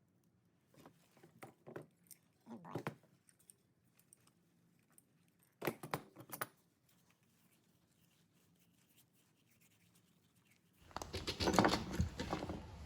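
Hand tools snipping and metal pieces clicking as small copper parts are cut out of a microwave, in a few short clusters. Near the end a loud, steady rough scraping begins.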